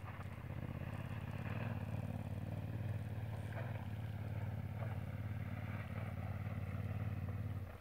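A distant adventure motorcycle's engine pulling steadily up a steep gravel switchback climb, a low steady drone.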